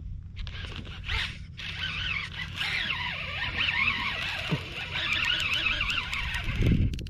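Baitcasting reel's drag buzzing in wavering, rising and falling runs as a hooked redfish pulls line against a loosely set drag. A dull low thump comes just before the end.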